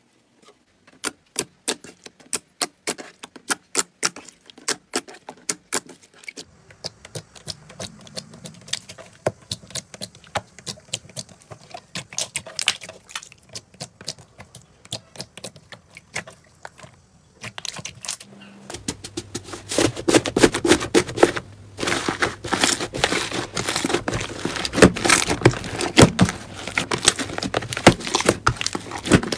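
Hands pressing and squeezing glossy slime, making many sharp popping clicks from trapped air. About two-thirds of the way through, this turns into a denser, louder run of wet squishing and crackling as a larger mass of slime is kneaded.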